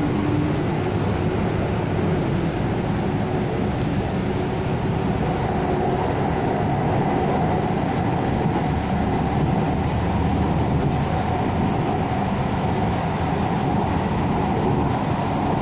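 Steady running noise of a Hyderabad Metro train, heard from inside the carriage as it travels along the track.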